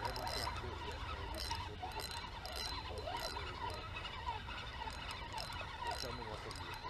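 Spinning reel being cranked to retrieve line, a faint irregular ticking over a low steady rumble.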